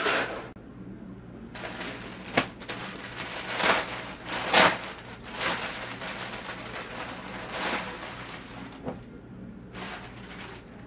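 Clear plastic bags crinkling and rustling as folded clothing is handled and slid out of them, in a run of short rustles with the loudest crackle about four and a half seconds in.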